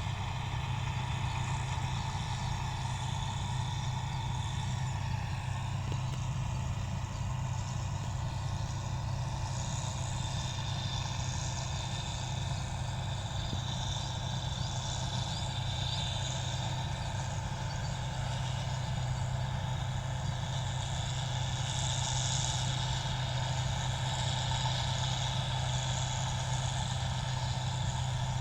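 Rice combine harvester running steadily, its engine holding an even, unchanging low hum under a constant mechanical noise.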